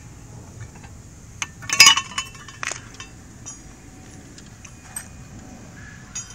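Metal hand tools clinking and rattling, in a loud cluster about two seconds in followed by a few lighter clicks.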